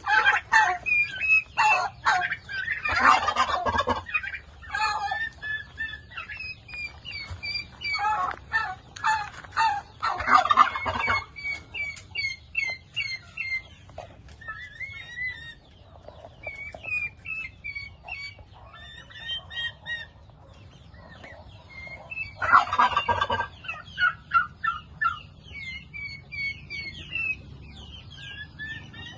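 Domestic turkeys calling, with three loud rattling gobbles (early, near the middle, and late) over a steady run of short high-pitched calls.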